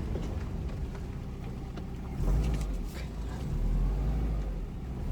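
2002 Subaru WRX's turbocharged flat-four engine running under way, heard from inside the cabin as a low rumble that swells about two seconds in and again a little later.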